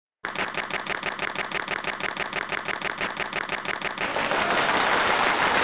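Typewriter sound effect laid over animated text: rapid, even key clicks, about eight a second. About four seconds in, the clicking gives way to a steady rushing hiss.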